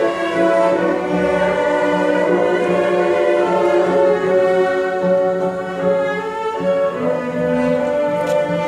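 High school orchestra playing, with bowed strings, violins and cellos, carrying sustained notes that shift from chord to chord.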